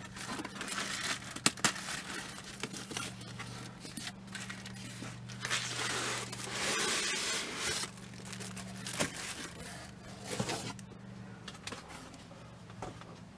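Cardboard shipping box being opened by hand: flaps pulled open and the packed box slid out, with cardboard scraping, packing paper rustling and crinkling, and a few sharp knocks, busiest about six seconds in.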